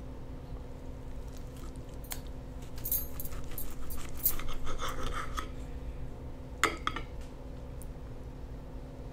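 Knife and fork cutting through an English-muffin sandwich on a plate: scraping and clicks of cutlery against the plate, busiest from about three to five and a half seconds in, with one sharp clink near seven seconds.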